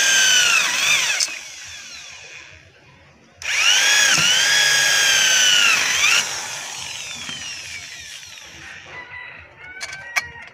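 Handheld electric drill whining at full speed as it bores through an aluminium satellite-dish rib, in two runs. The first cuts off about a second in and spins down with falling pitch. The second runs from about three and a half to six seconds and spins down the same way. Near the end come a few light metallic clicks as the aluminium ribs are handled.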